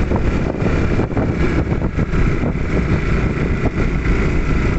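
Vehicle engine running on the move along a rough road, with wind buffeting the microphone.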